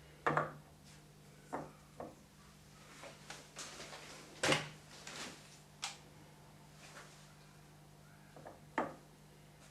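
A string of irregular knocks and clinks, like parts being picked up and set down on a workbench, the loudest about halfway through, over a steady low hum.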